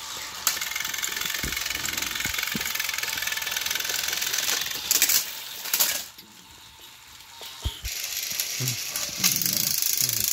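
Battery-powered motorised toy train engines whirring as they run on plastic track, with a quieter gap from about six to eight seconds in and a few light knocks of plastic.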